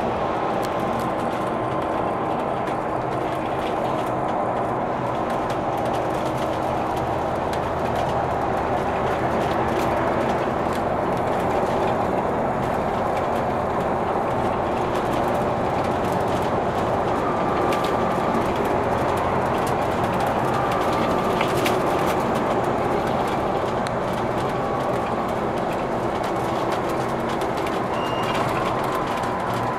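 Interior ride noise of an Alexander Dennis Enviro500 double-decker bus cruising on a highway: a steady drone of the diesel engine and tyres on the road, with faint whines and occasional light rattles.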